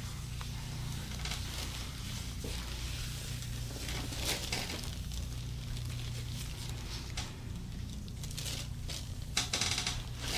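Soft rustling and rubbing of clothing against the treatment table, in a few short bursts, over a steady low hum.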